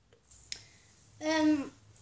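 A light click about half a second in, then a child's short wordless vocal sound lasting about half a second, held on one pitch and dropping at the end.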